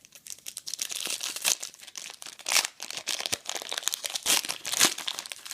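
A trading card pack's wrapper being crinkled and torn open by hand: a dense run of crackling with several louder crackles.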